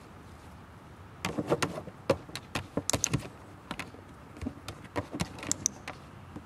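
A dog's paws knocking and scrabbling on a hollow plastic platform: an irregular run of knocks and clatters that starts about a second in and lasts about four seconds.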